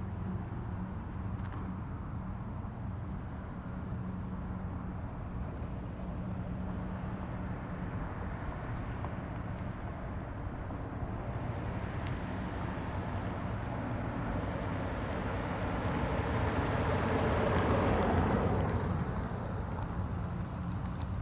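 Distant highway traffic: a steady low rumble. Partway through, one passing vehicle grows louder over several seconds, peaks about three-quarters of the way in, then fades away.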